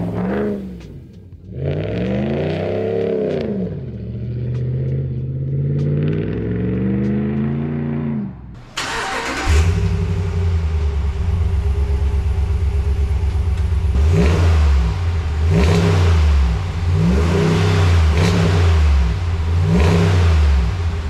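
Straight-piped 5.7L Hemi V8 in a Ram 1500, its muffler replaced by a straight pipe, revved up and down several times, with a deep rumble between revs. About nine seconds in the sound cuts to a second clip where it runs with a steady pulsing rumble and is blipped several more times.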